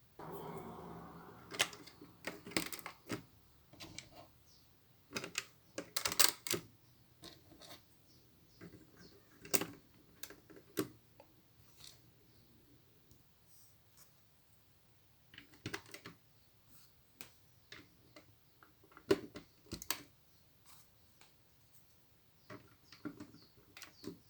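Plastic Lego bricks being handled and pressed together during a build: irregular sharp clicks and snaps, often in quick clusters, with a brief rustle near the start.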